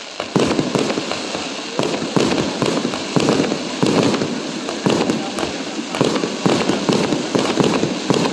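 Fireworks display: aerial shells bursting one after another, a sharp bang somewhat less than twice a second, over a continuous crackling hiss.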